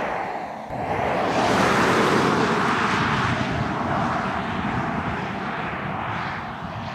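Land Rover Defender 90 P300's 2.0-litre turbocharged four-cylinder petrol engine and tyres as the SUV drives away along the road. The sound swells about a second in, then slowly fades as it recedes.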